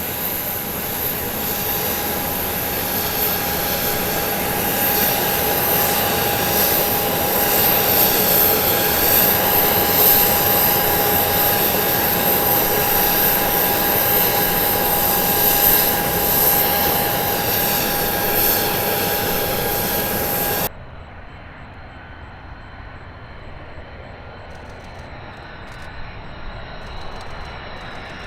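Aircraft engines running loud and steady, with a constant high whine over the roar. About twenty seconds in the sound cuts off suddenly to a quieter, more distant aircraft noise.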